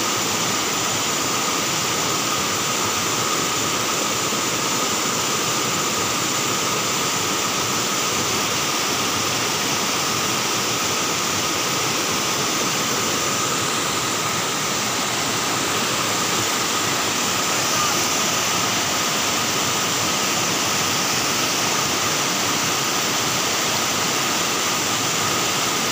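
River water rushing steadily over a low rocky cascade, an even, unbroken noise, with a faint steady high whine over it.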